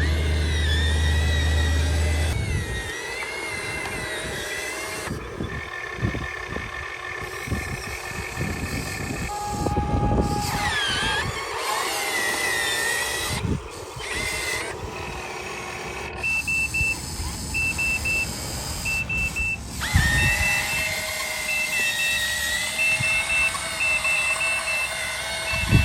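Electric gear motors of a Huina 1580 RC excavator whining as it drives and works, the pitch wavering as the load changes. In the last third, short high electronic beeps repeat about twice a second.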